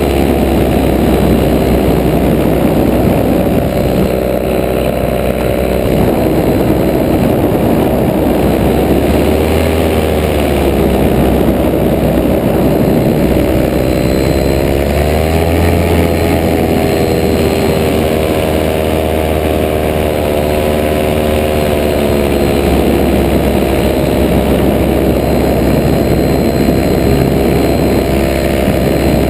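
Paramotor engine and propeller running steadily in flight, with a rush of air. The engine note climbs and falls back twice, about ten and fifteen seconds in.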